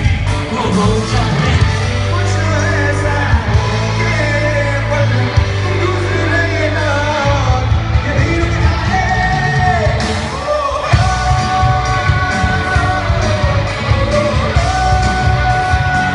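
Loud amplified music through a PA sound system: a sung vocal over a steady, heavy bass.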